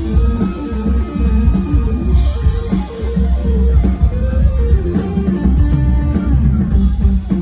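Live rock band playing loud through a PA: electric guitar lines over heavy bass and a drum kit.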